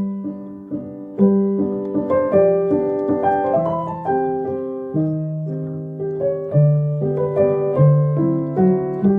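Background piano music: a slow, gentle melody over held bass notes, each note struck and left to fade.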